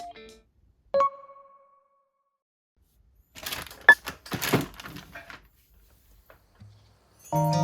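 A single light clink that rings briefly, then a few seconds of clattering handling noise with one sharp click, typical of cookware and utensils being handled. Background music comes back in near the end.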